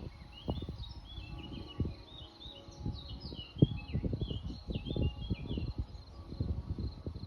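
Songbirds chirping in quick, short falling notes that stop about six seconds in, over a faint steady high insect trill. Low, irregular gusts of wind buffet the microphone.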